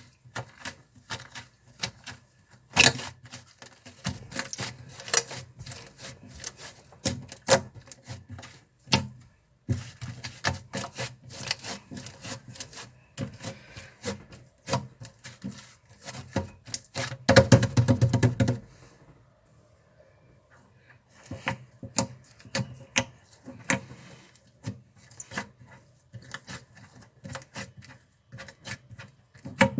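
Slime being pressed and squeezed by hand, making dense crackling clicks and small pops. A louder squishing stretch comes a little past halfway, then a short lull before the clicking resumes.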